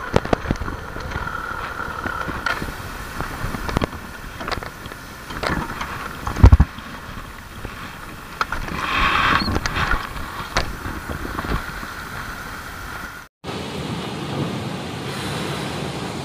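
Motorcycle riding over a rough dirt track, its engine running under steady wind noise on the microphone, with frequent rattling knocks from bumps and one loud thump about six and a half seconds in. About three seconds before the end the sound cuts to an even rushing noise of water pouring through open dam spillway gates.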